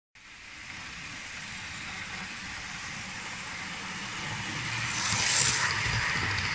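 Model train running along the track toward the microphone and past it, its wheels and motor making a rumbling hiss that grows louder and peaks with a brief sharp hiss about five seconds in as the locomotive goes by.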